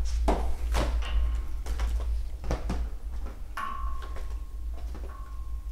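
Clicks, taps and rustles of a boxed parking-sensor kit being handled, its cardboard box and plastic parts knocking together, over a steady low hum.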